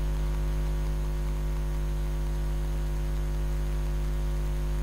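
Steady electrical mains hum with a ladder of overtones, unchanging in pitch and level.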